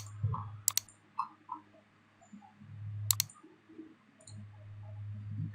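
Computer mouse clicks: a few single, spaced-out clicks over a faint low hum that comes and goes.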